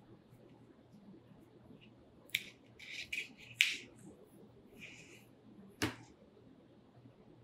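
A recurve bowstring being handled with nitrile-gloved hands: a few short, sharp rustles and clicks of the string and gloves from about two to four seconds in, then one sharp tap near six seconds.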